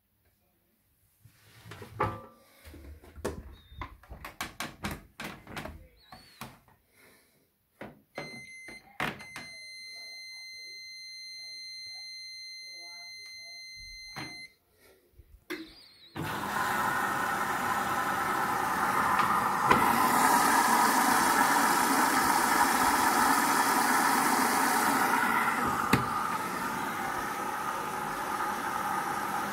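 Hoover DXC58W3 washing machine starting its service test cycle: a run of sharp clicks, then a long high electronic beep, then about halfway through the machine starts running loudly and steadily, with a hissing rush joining in for about five seconds.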